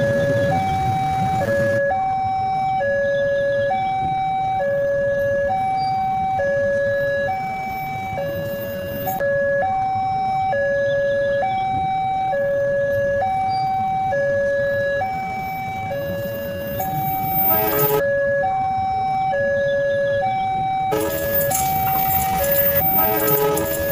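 Railway station's pole-mounted electronic warning siren sounding a steady hi-lo alarm, switching between two pitches about every half second, the signal that a train is approaching. A rushing noise joins near the end.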